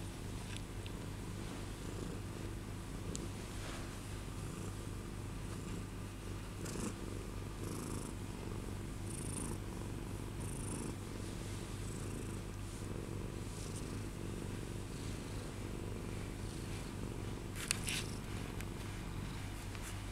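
Black-and-white domestic cat purring steadily while kneading a fleece blanket, with a few faint rustles and a short scratchy click near the end.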